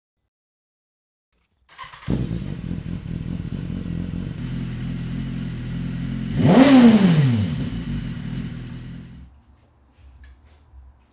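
BMW S1000RR inline-four sport-bike engine idling, with one quick rev blip that rises and falls in pitch about halfway through, the loudest moment. The engine sound starts suddenly about two seconds in and stops abruptly about nine seconds in.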